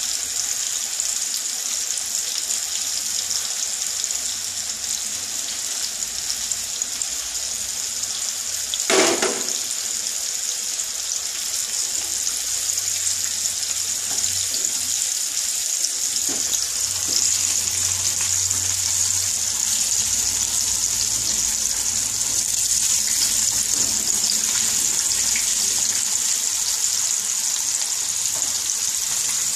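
Breadcrumb-coated chicken pieces deep-frying in hot oil in a kadai, a steady sizzle, the gas kept low so the raw chicken cooks through. A single sharp knock about nine seconds in, and a wire skimmer is moved through the oil later on.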